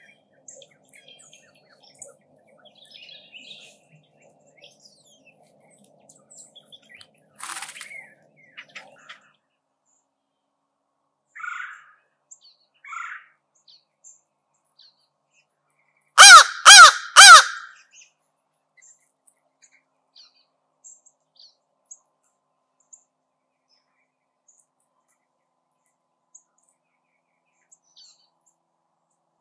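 Crow cawing three times in quick succession, loud and close, about halfway through, with a few fainter calls and small chirps before it.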